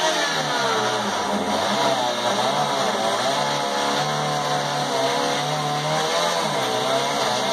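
Chainsaw engine running under load as it cuts through a hot tub shell, its pitch wavering up and down as the chain bites.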